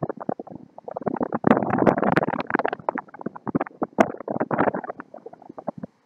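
Strong wind buffeting the microphone in ragged, gusty bursts over heavy surf breaking on shore rocks. The gusts are strongest in the first half and ease off near the end.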